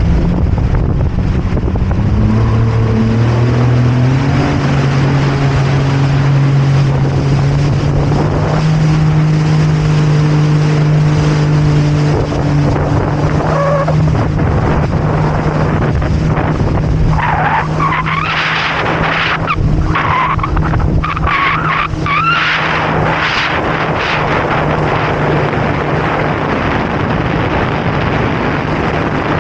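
Jet ski engine accelerating, its pitch rising over the first few seconds and then holding steady at speed, with wind and water noise. Around the middle a rougher, wavering higher-pitched sound joins in for several seconds.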